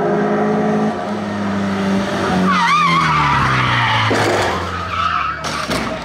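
BMW E46 3 Series race car's engine running hard, its pitch dropping about a second in and then falling steadily as the car slows into a corner. From about halfway, tyres squeal with a wavering tone as the car slides sideways through the bend.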